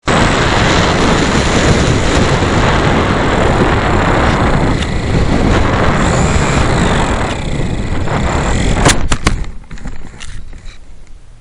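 Heavy wind buffeting the microphone, a loud, rough rumble that cuts in suddenly. About nine seconds in, a few sharp clicks come and the wind noise drops away to a much quieter level.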